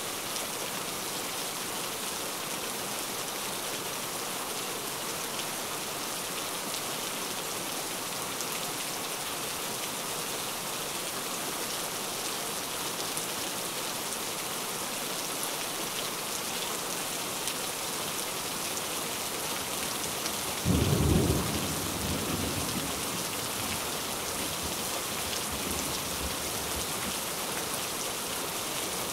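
Heavy rain falling steadily. About two-thirds of the way through, a sudden clap of thunder breaks in low and loud, then rumbles away over a couple of seconds.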